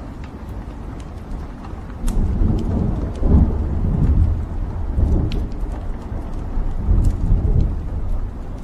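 Wood fire burning in a fireplace: scattered sharp pops and crackles from the logs over a low rumble of the flames, which swells about two seconds in and rises and falls several times.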